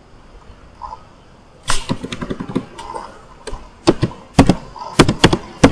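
Computer keyboard typing: irregular clicking keystrokes, several a second and some louder than others, starting a little under two seconds in.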